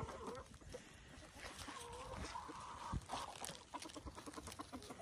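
Chickens clucking and giving drawn-out, wavering calls, with one dull thump about three seconds in.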